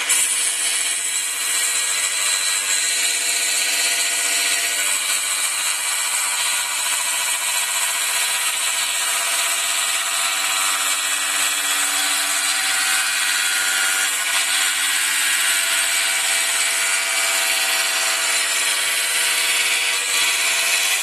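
Feram scroll saw running steadily and cutting wood: an even motor hum under a high hiss from the reciprocating blade.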